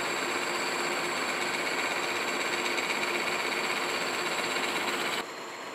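Kearney & Trecker horizontal milling machine running, its face-milling cutter taking a light pass across a bronze bearing casting: a steady machining noise with a faint steady hum. About five seconds in the level drops abruptly and stays lower.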